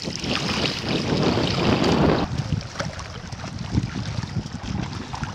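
Seawater splashing and sloshing in shallow water, with wind buffeting the microphone. For the first two seconds it is a loud wash of noise that then cuts off abruptly. Lighter, scattered splashes follow as hands paddle a surfboard.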